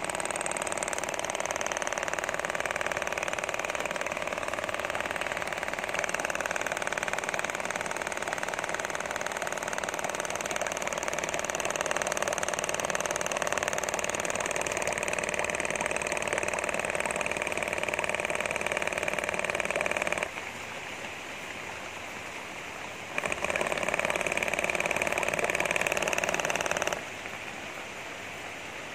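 Homemade diaphragm air pump running: a small brushed DC motor drives a crank and connecting rod against a diaphragm with a fast, steady mechanical rattle. It cuts out about twenty seconds in for some three seconds, starts again, then cuts out once more near the end.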